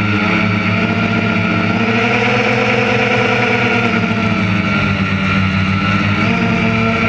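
Engine of a piece of harvest machinery running steadily, its pitch lifting a little for about two seconds midway and then settling back.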